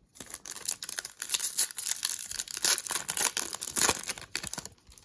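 A foil trading-card pack being torn open and its wrapper crinkled in the hands: a dense crackle of small snaps that stops shortly before the end.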